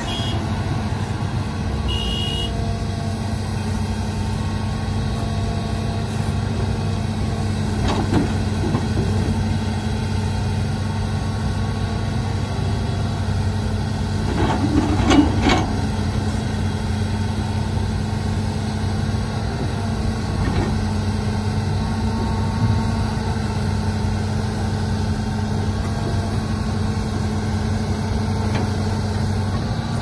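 Heavy diesel engines of a Hitachi crawler excavator and a dump truck running steadily. A few knocks and scrapes, loudest about fifteen seconds in, come from the excavator bucket digging at an overloaded load stuck in the raised dump bed.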